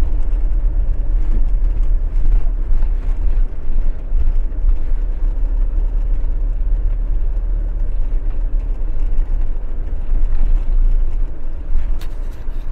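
Motorhome engine and road noise heard from the cab while driving slowly: a steady low rumble with a faint steady hum above it. A single short click near the end.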